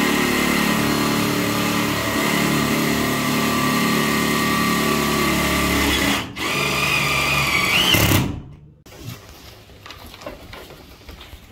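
Power drill with a long extension bit driving a screw into a shower screen's metal base frame: the motor runs steadily for about six seconds, stops for a moment, then runs again for two more seconds and ends in a short rising whine.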